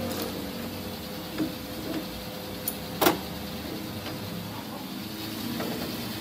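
Steady workshop machine hum with a few light metal clicks and one sharp metallic knock about three seconds in, as a steel shaft is handled in a lathe's four-jaw chuck.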